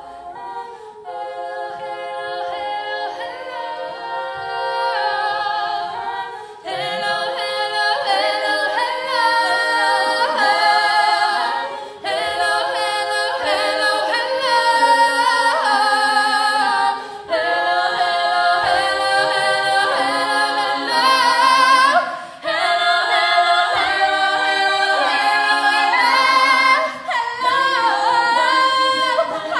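Five-woman a cappella group singing in close harmony, several voices at once with no instruments, building in loudness over the first several seconds.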